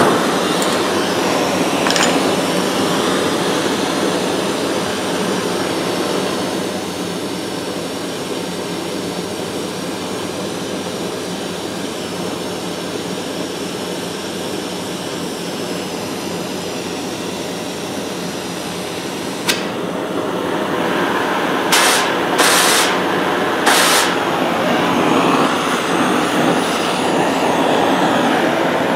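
Oxy-fuel gas torch flame burning with a steady, rushing hiss. About twenty seconds in there is a click, then three short sharp bursts of hiss, and the flame runs louder afterwards as it is turned from a sooty yellow flare to a tight blue heating flame.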